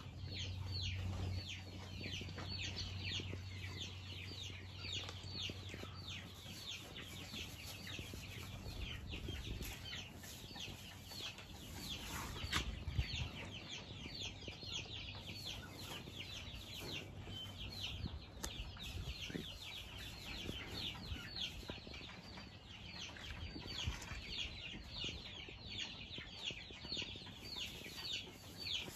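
Chickens peeping in a dense, continuous stream of short, high, falling chirps. A low steady hum runs under the first several seconds, and there are a couple of dull knocks a little before halfway.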